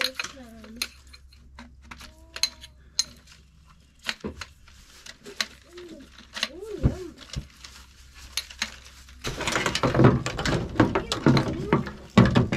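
Camp gear being handled: a run of light clinks, knocks and clatter, with short bits of voice here and there. About nine seconds in the handling gets louder and busier.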